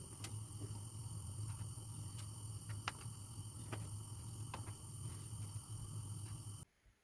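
Steady low hum with a scattering of light clicks and ticks over it, cutting off suddenly near the end.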